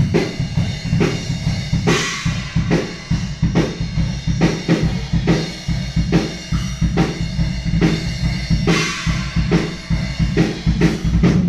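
Drum kit played in a steady beat, kick and snare hits with a cymbal crash about two seconds in and another a few seconds before the end.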